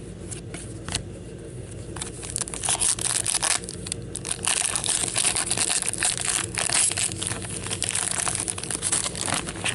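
A few light clicks, then from about two and a half seconds in, the wrapper of a hockey card pack crinkling and tearing as it is ripped open by hand.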